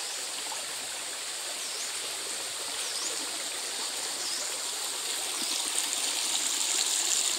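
Shallow stream running over rocks, a steady rush of water that grows louder about five seconds in.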